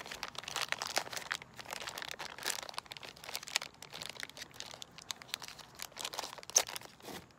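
Clear plastic zip-top bag crinkling and rustling as it is pulled open and a container is worked out of it. The crackles are irregular, with one sharper crackle about six and a half seconds in.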